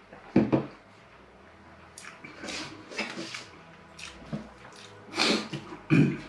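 A glass set down on the table with a knock, then a fork scraping, cutting and tapping on a paper-lined metal baking tray. The scrapes and knocks come in short bouts, the loudest near the end.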